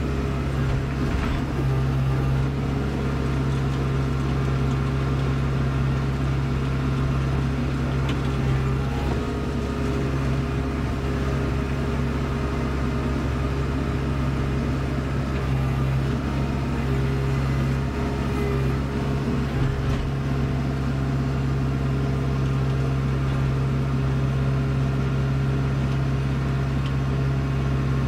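Kubota Grand L4760 tractor's diesel engine running steadily under load, driving its PTO-powered front snowblower as it throws snow, heard from inside the enclosed cab: a constant drone with a strong low hum.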